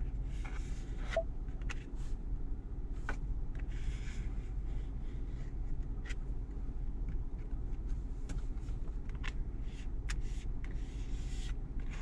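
Plastic card squeegee sliding and scraping over a wet, soapy screen protector on a car touchscreen: a few faint strokes and light clicks over a steady low hum.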